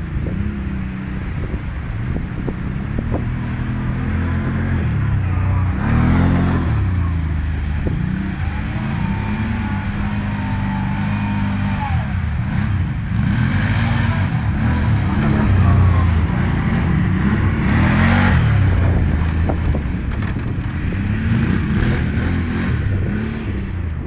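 Quad bike (ATV) engines revving up and down over and over as the machines ride.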